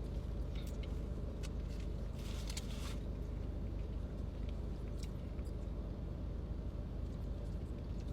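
Steady low hum, with a few faint clicks and a brief crinkle about two and a half seconds in, from quiet eating and handling of food.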